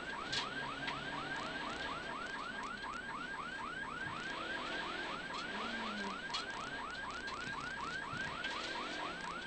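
An electronic alarm tone repeating a short rising whoop about four times a second, steady throughout, with faint engine and road noise from the moving car underneath.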